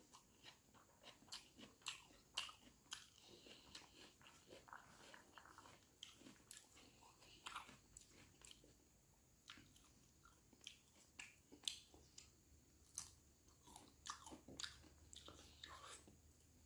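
Faint mouth sounds of a person eating by hand: chewing, with irregular crunching bites and clicks several times a second.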